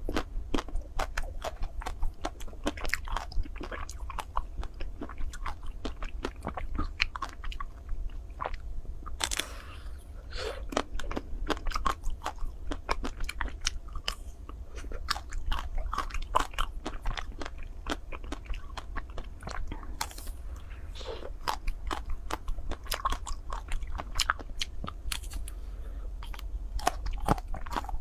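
Close-up biting and chewing of chocolate-coated ice cream bars: the crisp chocolate shell cracks in a steady run of irregular crunches.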